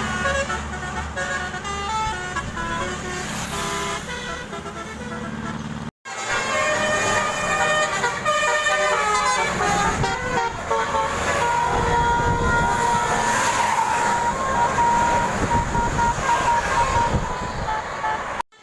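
Basuri telolet bus horn playing a multi-note tune in quick stepped pitches. After a cut about six seconds in, more telolet horn blasts sound over vehicle noise, with a long held note in the second half.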